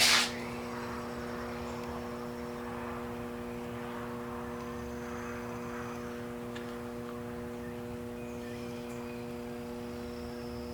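A steady electrical hum with a faint hiss underneath, opened by a brief sharp rustle or knock.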